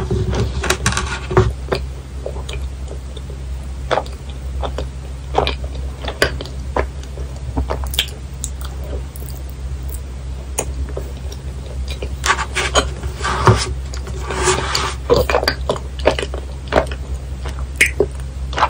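Close-miked eating sounds of soft vanilla ice cream: wet mouth smacking and chewing with many small clicks, busiest near the start and again after about twelve seconds, over a low steady hum.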